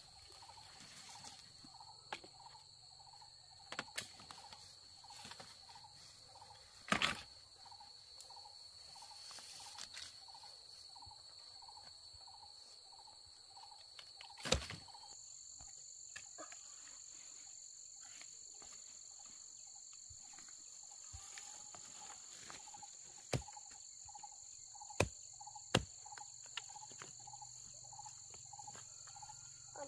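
Insects buzzing in steady high-pitched tones, with a second, higher insect tone joining about halfway, over a fainter low call pulsing about twice a second. Several sharp knocks and cracks of dry branches being dragged and handled stand out, the loudest a little before halfway.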